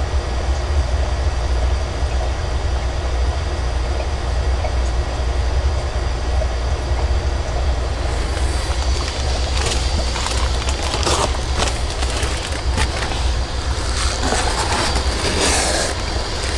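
Plastic fish bags crinkling and crackling as they are handled and lifted out of a styrofoam shipping box, in bouts from about halfway through. Under it a steady low rumble runs throughout.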